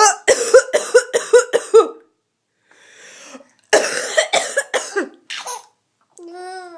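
A woman coughing in bouts: a quick run of about six short coughs in the first two seconds, then another bout about four seconds in.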